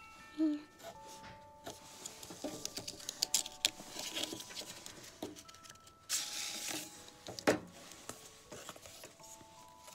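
A paper envelope is slit open with a craft knife, its flap pulled open and a greeting card slid out: scratchy paper scraping, rustling and light taps. A louder burst of rustling comes about six seconds in and a sharp click about a second later.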